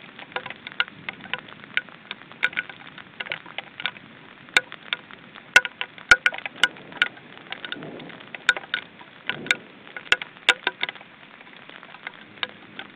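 Rain: irregular drops ticking sharply close to the microphone over a faint steady hiss, with a soft low rustle twice near the middle.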